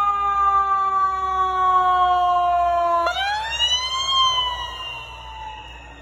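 Emergency vehicle air horn blasting for about three seconds, its pitch sagging slightly, then cut off by a siren that winds up for about a second and falls away again.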